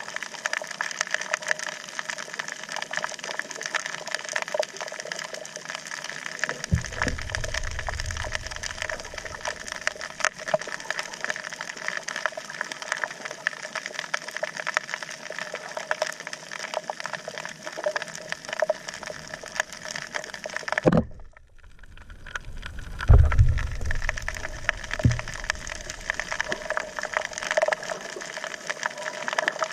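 Underwater sound on a shallow coral reef: a steady, dense crackle of fine clicks. Low rumbles of moving water come in twice, with a brief muffled dip just before the second.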